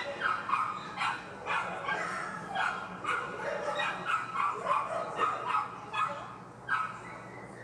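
Dogs barking and yipping: many short, sharp barks coming irregularly, several a second.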